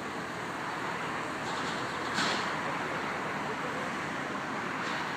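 Mobile crane's engine running steadily as it hoists a long concrete beam, with a short sharp knock about two seconds in.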